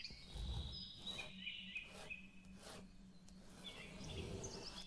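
Pen strokes scratching on paper as several curved lines are drawn, a few strokes about a second apart. Faint bird chirps sound throughout, over a low steady hum.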